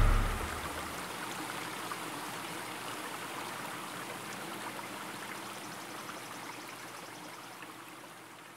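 Steady, gentle flowing-water ambience that slowly fades out, after music ends in the first moments.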